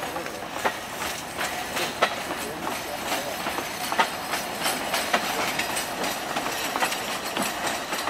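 Narrow-gauge Alishan Forest Railway passenger coaches rolling slowly past, with the steady rumble of the train and irregular sharp clicks and knocks from the wheels on the track.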